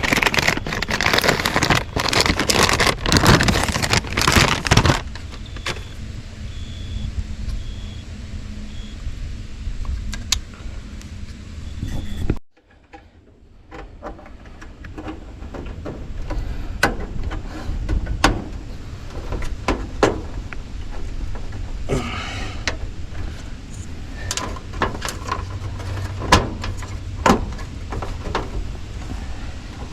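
Handling noise as a replacement heat-pump defrost control board is fitted: a few seconds of loud rustling, then scattered clicks and light knocks over a steady low hum. The sound drops out for about a second partway through.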